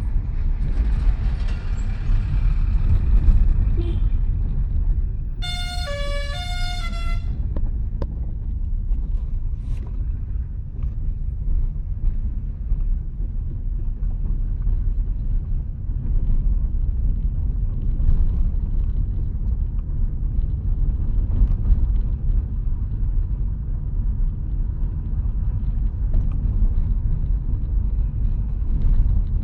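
Steady low rumble of a car's engine and road noise heard from inside the cabin, with a louder, hissier stretch in the first few seconds as a truck is passed alongside. About five and a half seconds in, a vehicle's musical horn plays a short run of a few stepping notes lasting about a second and a half.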